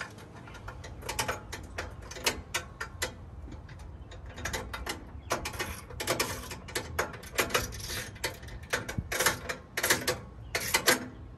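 Hand socket ratchet with a deep socket clicking in repeated short runs as bolts are cranked down tight.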